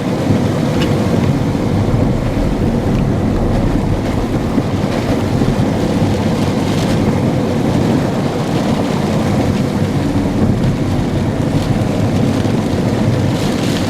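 Steady loud rumble of strong thunderstorm wind and rain, with wind buffeting the microphone.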